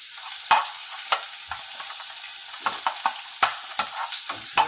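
Scrambled eggs being stirred in a hot frying pan: a steady sizzle broken by about ten sharp clicks and scrapes of the utensil against the pan.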